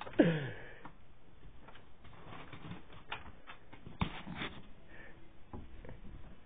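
Handling noise from a phone camera held close: scattered light clicks, taps and rubbing against cloth. A brief falling voice-like sound comes at the start.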